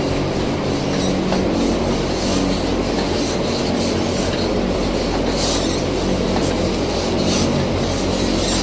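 Mechanized battery-cage poultry equipment running: a steady machine rumble with a low hum and rubbing, scraping noises that come and go.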